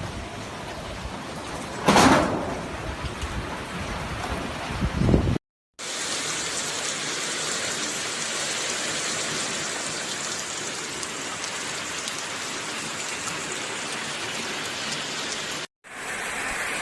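Tropical-storm wind and heavy rain: uneven noise with one loud rush about two seconds in, then, after a brief dropout, a steady even hiss of heavy rain.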